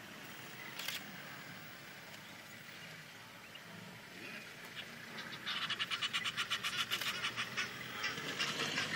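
Wildebeest herd calling: a rapid, even run of nasal grunts, about seven a second, that sets in about five seconds in and carries on.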